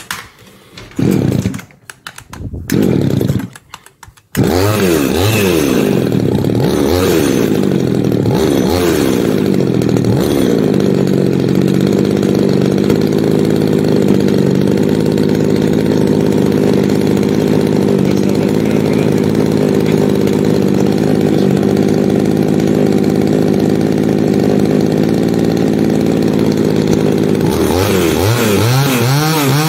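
Two-stroke pruning chainsaw pull-started: a couple of loud pulls, then it catches about four seconds in, runs unevenly for a few seconds and settles into a steady idle. Near the end the throttle opens and the revs climb. It is running on a freshly cleaned carburetor, its low-speed screw set at 3 turns and 30 degrees and its high-speed screw at 3.5 turns and 30 degrees.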